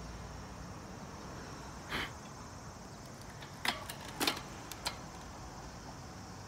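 Steady outdoor background noise with a faint high, even hum, broken by a few short, sharp clicks between about two and five seconds in.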